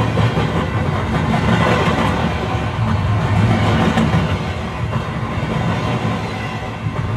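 Passenger train running on the line, heard from inside the carriage: a steady rumble with faint clicks of the wheels over the rail joints.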